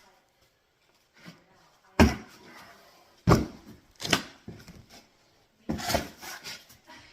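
Bricklaying work: about five sharp knocks at uneven intervals as a trowel and solid jumbo bricks strike while a course is laid in mortar.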